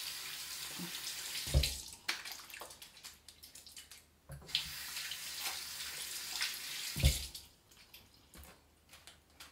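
Water running from a bathroom tap in two stretches of a few seconds, each cut off by a dull thump, the loudest sounds here; quiet with a few small knocks near the end.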